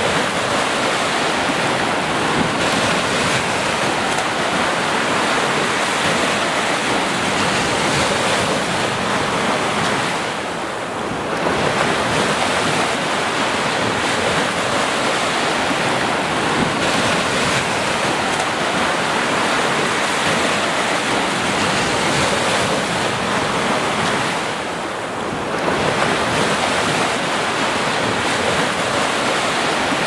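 Small surf breaking and washing up a sandy beach: a steady rush of waves that eases off briefly twice, about a third of the way in and again a little after three-quarters through.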